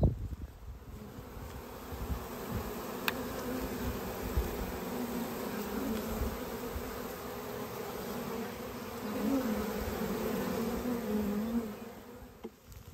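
A swarm of honey bees buzzing close by: a steady hum that wavers slightly in pitch, fading away near the end. A few low knocks at the start and a single sharp click about three seconds in.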